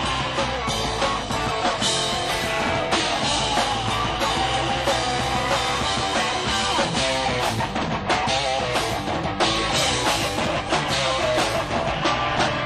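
Live rock band playing: electric guitar over a drum kit.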